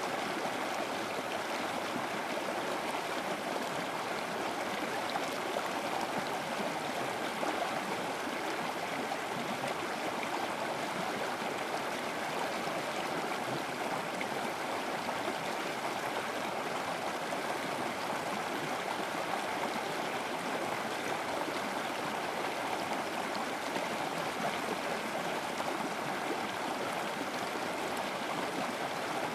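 River water flowing steadily, a continuous rushing and gurgling with no break or change.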